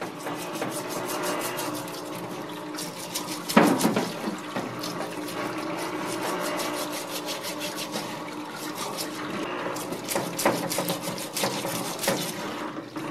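Solvent running from a parts washer's flexible nozzle and splashing in the tank as a metal part is scrubbed by hand, with many short scrubbing strokes and a steady hum underneath. A louder knock or splash comes about three and a half seconds in.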